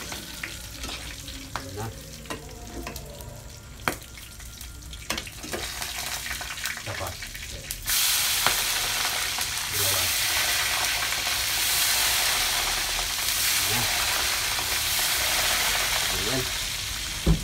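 Chicharon bulaklak (pork mesentery) frying in a pan: a metal spatula clicks and scrapes as the pieces are stirred, then about eight seconds in a loud, steady sizzle starts and holds.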